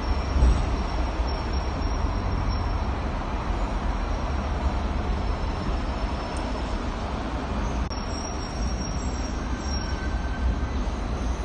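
Double-decker tram running on its rails, heard from inside the upper deck: a steady low rumble with a faint high whine that comes and goes.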